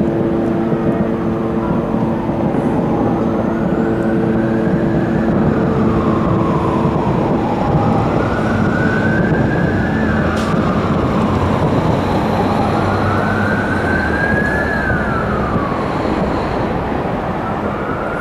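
An emergency vehicle's siren wailing, its pitch slowly rising and falling about every four to five seconds, over a loud, steady, noisy din.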